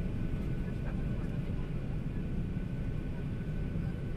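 Steady low cabin rumble of a Boeing 737-800 taxiing after landing, its CFM56 engines at idle, with a faint steady high whine.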